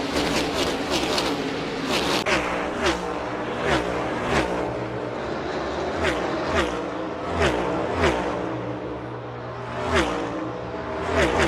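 A pack of NASCAR Next Gen stock cars with V8 engines passing by at racing speed one after another, each car's engine pitch dropping sharply as it goes past.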